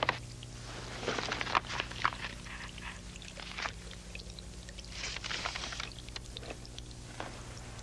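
Water trickling and splashing irregularly from a small fountain, over a steady low hum.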